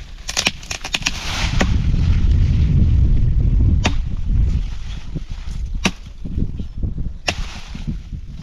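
Wood being chopped with a blade: a quick cluster of sharp strikes, then single blows every second and a half to two seconds, with a loud low rumble for a few seconds between them.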